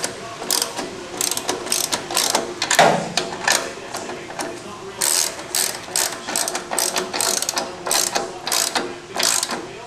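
Socket ratchet wrench clicking in quick repeated strokes, about two a second, as it tightens the nut on an exhaust pipe clamp.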